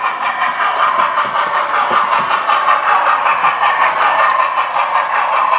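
Hornby TTS sound decoder in an OO-gauge Flying Scotsman model playing steam locomotive chuffing through its small on-board speaker, an even, rapid beat as the model runs at speed.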